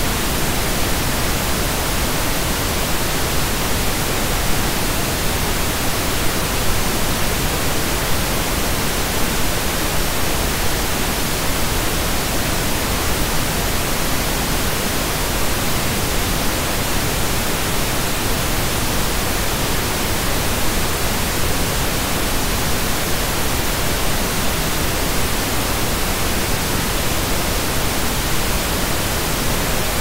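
Steady, unchanging pink noise: an even hiss spread across the whole range of pitch, with no tones or breaks.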